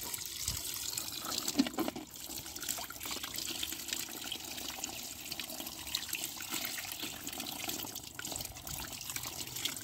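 Tap water running in a steady stream into a plastic tub of water, splashing over plastic toys being rinsed under it.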